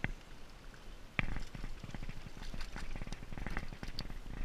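Irregular clicks, knocks and rustling close to the microphone as a small trout is played in on a light spinning rod and reached for by hand, the loudest a sharp click about a second in, over the low rush of a creek.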